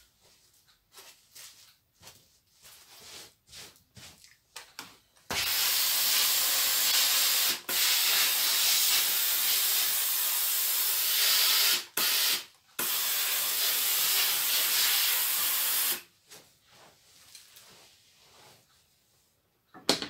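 Steam iron jetting steam with a loud, steady hiss in three long bursts with brief breaks, from about five seconds in until about sixteen seconds, as a creased diamond-painting canvas is pressed flat.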